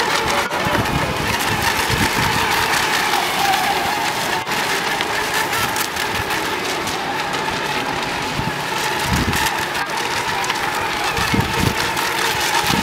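Small electric radio-controlled racing boats running flat out across the water, a steady high motor whine over the hiss of hull spray. Low rumbles come and go near the end, like wind buffeting the microphone.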